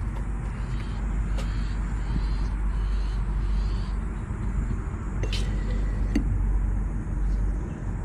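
A steady low rumble with a few sharp metallic clicks, the strongest about five seconds in, as a metal hose clamp and a rubber hose connector are worked onto a chrome faucet spout.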